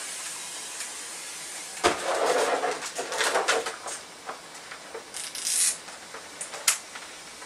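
Hoover steam mop hissing and sputtering as it is turned off, with a few clicks and knocks. There is a short, higher hiss about five seconds in.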